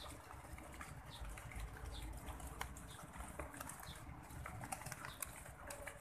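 Zebra dove pecking rice grains off concrete: a run of quick, light taps, with short high bird chirps about once a second in the background.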